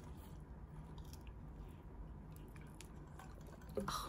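Quiet eating and drinking sounds: faint chewing and sipping of carbonated soda through a plastic straw from a can, over a low room hum. A brief louder sound comes near the end.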